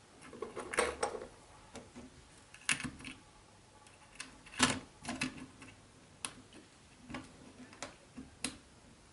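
Scattered light clicks and taps of fingertips and a small tool against a CR1220 coin-cell battery and its holder on a radio transmitter's circuit board, as the new battery is seated.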